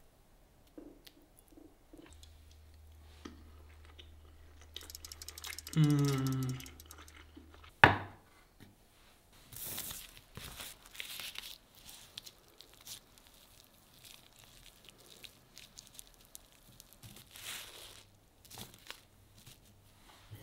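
Dry nori sheet crinkling and crackling in several bursts as hands handle it and lay it on a plastic-wrapped bamboo rolling mat. Before that comes a brief voice-like hum, then a single sharp knock, the loudest sound.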